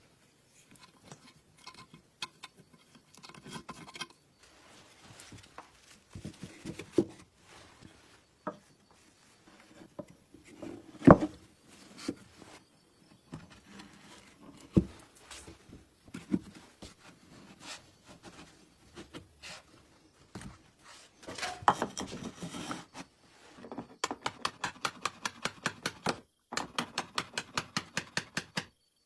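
Scattered clicks, knocks and rubbing of metal parts as an old household sewing machine is worked on. Near the end comes a fast, even ticking, about seven a second, as the machine's mechanism is run.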